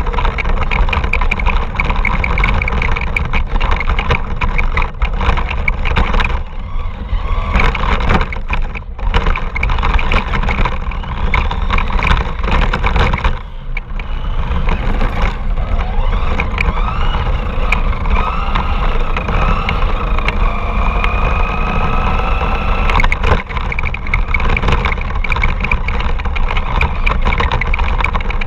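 RC car's motor and drivetrain running hard, with heavy rumble from the rough ground close to the mounted camera. Partway through a whine rises and falls, then holds steady for a few seconds before cutting off.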